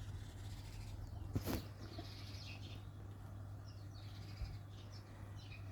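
Faint bird chirps over a steady low hum, with a brief rustle about one and a half seconds in.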